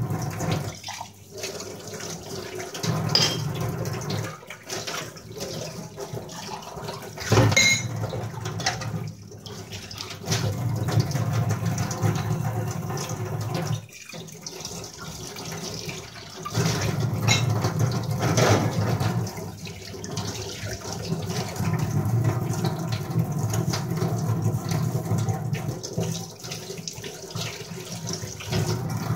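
Tap water running and splashing in a kitchen sink while steel utensils are washed by hand, with a few sharp clinks of metal vessels knocking together.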